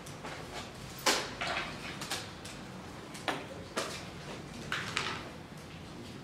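A few separate, irregular knocks and scuffs over faint room noise: a person's footsteps on a hard floor and the handling of papers.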